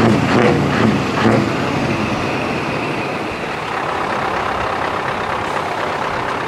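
Scania V8 truck with an open exhaust pipe: a few quick revs in the first second or so, then a whistle falling away as the engine settles to a steady run.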